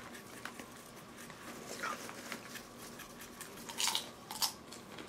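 Faint, scattered scratching of a paintbrush's bristles dabbing and scraping over the rough, textured surface of a mask, with two brief sharper scrapes about four seconds in.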